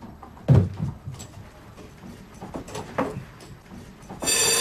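Hurried footsteps and knocks on a wooden floor, then near the end an electric doorbell buzzer sounds loudly for less than a second.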